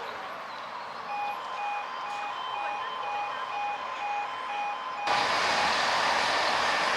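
Electronic warning beeps in a two-tone pattern, about two a second, for some four seconds. About five seconds in, the sound cuts abruptly to the louder, steady rushing noise of a train running.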